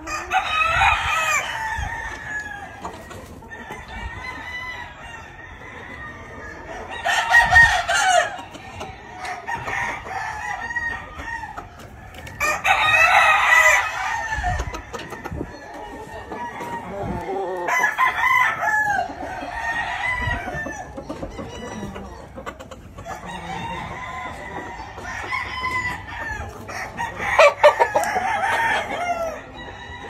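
Gamefowl roosters crowing one after another, a long crow every few seconds, with some clucking between. The birds are Asil, Kelso and Sweater game-breed roosters.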